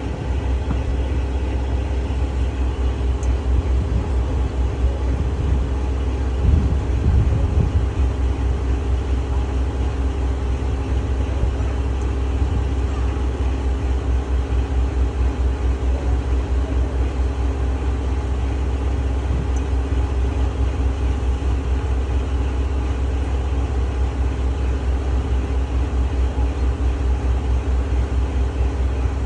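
Boat engine running steadily, a low even rumble heard from aboard the boat, briefly a little louder about seven seconds in.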